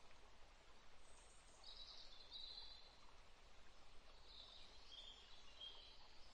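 Near silence, with faint bird chirping twice in the background.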